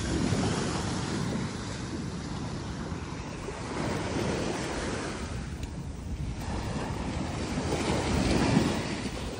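Small Gulf of Mexico waves breaking and washing up the sand, the surf swelling three times about four seconds apart, with wind buffeting the microphone.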